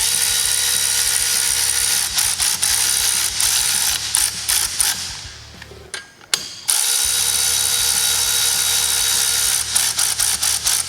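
Cordless ratchet spinning in the handlebar riser bolts: a steady motor whir for about four seconds that fades out, a short pause about six seconds in, then a second run of about three seconds, followed by a few short ratchet clicks near the end.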